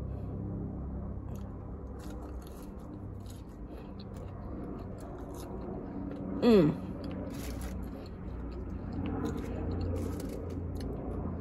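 A person chewing fast food close to the microphone, with small biting and crunching sounds, over a steady low hum. About six and a half seconds in there is a short hummed "mm".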